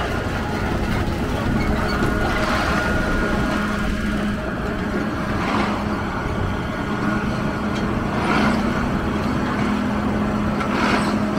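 A heavy diesel engine runs with a steady hum under dense street noise, and swells of noise come about every three seconds.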